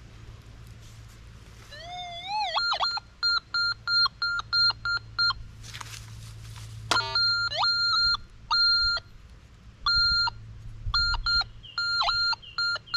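Metal detector beeping on a buried target as the coil sweeps back and forth: a few rising warbles, then many short beeps on one pitch, several a second, broken by longer held tones.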